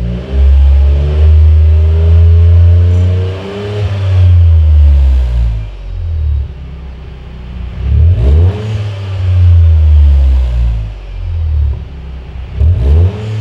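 Toyota GR Yaris RZ's 1.6-litre turbocharged three-cylinder engine revved repeatedly with the car stationary, heard through a BLITZ Nur-Spec Custom Edition all-stainless aftermarket exhaust. Revs are held for a second or two at a time and fall back between them, with quick blips about eight seconds in and near the end.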